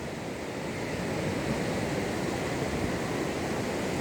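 Ocean surf washing onto the beach, a steady wash of noise, with wind buffeting the microphone.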